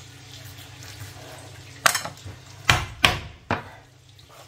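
A knife chopping raw chicken on a cutting board: four sharp knocks, the last three close together.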